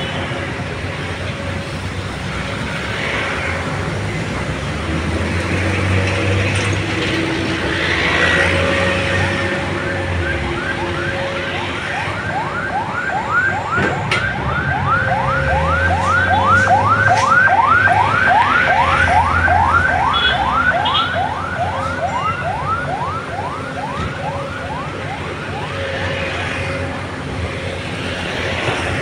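Komatsu PC200 hydraulic excavator's diesel engine running under load, swelling and easing as the machine digs and swings. For over ten seconds in the middle, a fast, regular run of rising squeaks, about three a second, sounds over it.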